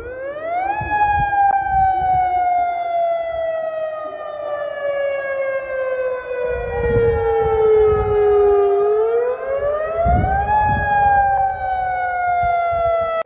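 Outdoor tsunami warning siren wailing: its pitch climbs quickly, falls slowly over about eight seconds, then climbs again near the end and starts falling once more.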